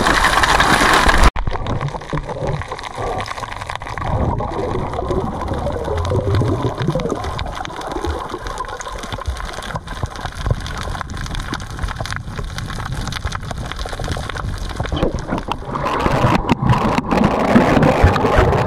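Muffled underwater water noise picked up by a camera beneath the surface, gurgling with low rumbles and a faint steady whine. The sound drops abruptly about a second in, then grows louder and more rushing, with a few sharp clicks, in the last few seconds.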